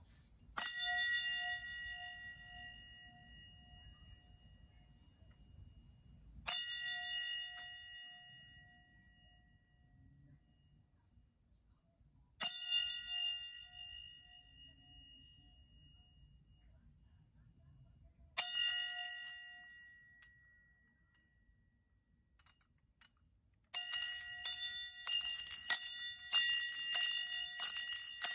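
A small metal bell is struck four times about six seconds apart, each strike ringing out bright and high with a slight wavering and fading over several seconds. Near the end it is rung rapidly, many strikes a second, in a continuous jingling ring.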